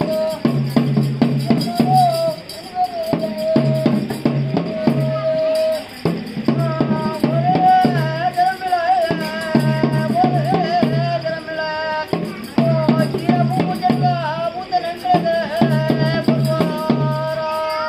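Ritual music for a Dhumavathi daiva kola: a wind instrument plays a long, wavering melody over repeated patterns of pitched drum strokes, with a steady rattling percussion.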